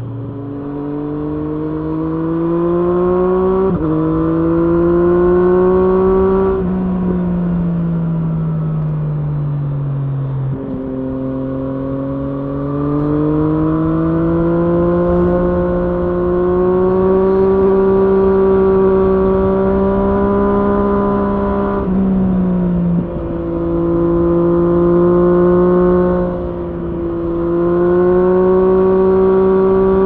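Triumph Street Triple S inline three-cylinder engine through an SC-Project SC1-R slip-on exhaust with its dB-killer fitted, heard while riding. It pulls up through the gears with a drop in pitch at each upshift, eases off and winds down for a few seconds, climbs again after a downshift into a long steady pull, then shifts once more and rolls off briefly near the end.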